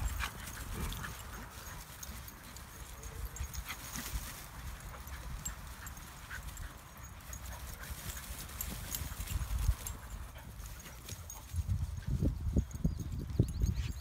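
Dogs running and playing on grass, over a steady low rumble. Near the end come several short, louder, low-pitched sounds.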